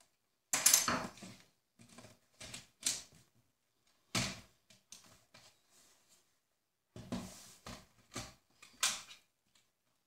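Hard plastic knocks and rattles of a Lenovo ThinkPad T420 laptop being handled, turned over and set down on a table, in several irregular clusters, the loudest about half a second in.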